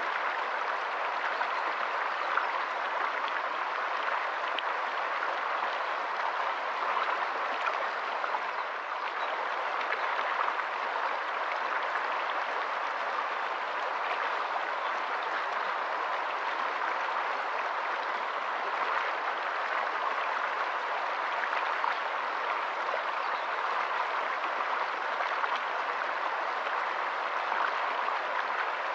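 Shallow stream running over rocks: a steady rush of water flecked with small splashes and gurgles.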